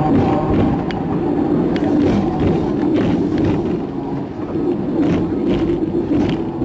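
Inside a Hong Kong double-decker electric tram running along the street: a steady rumble of wheels on rails and the motors, with irregular clicks and knocks.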